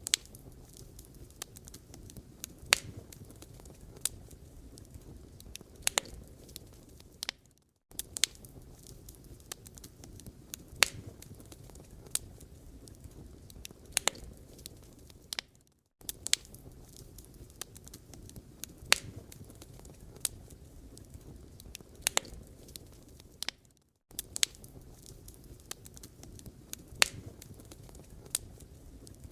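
Wood fire crackling in a fireplace: irregular sharp pops and snaps over a low, steady rumble of burning. The sound cuts out briefly about every eight seconds, like a short recording looped.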